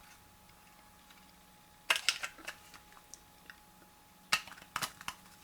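Small hard plastic clicks and taps as a small action camera is pressed into its 3D-printed plastic case: a cluster of clicks about two seconds in and another near the end.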